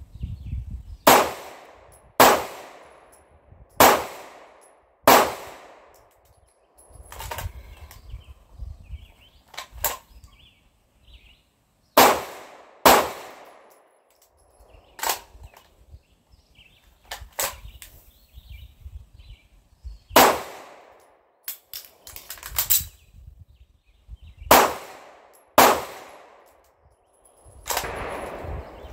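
Sig Sauer P226 pistol firing single shots in a drill: about a dozen sharp cracks, often in pairs about a second apart, with pauses of a few seconds between strings. Each shot rings on briefly under the shed roof.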